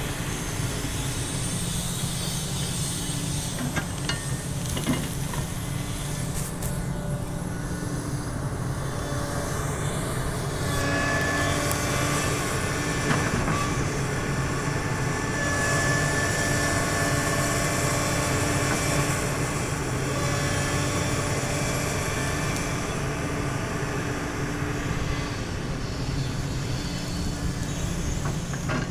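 Sany SY365H Pro hydraulic excavator's diesel engine running steadily as the machine digs soil, working harder about a third of the way in with a higher whine over the engine note. A few faint knocks of the bucket in earth and stone.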